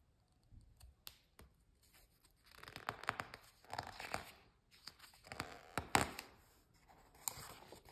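Book pages being handled and turned, with a few short, faint paper rustles.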